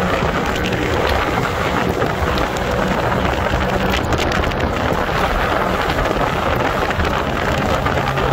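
Loud, steady wind rush buffeting the microphone on a moving motorcycle, with the bike's engine running underneath.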